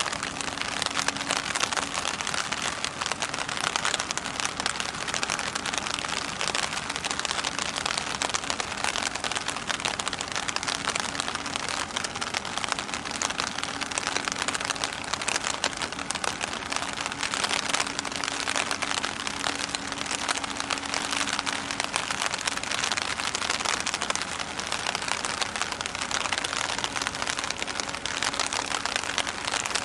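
Steady rain falling close to the microphone, a dense crackling hiss, with a faint low steady hum beneath it.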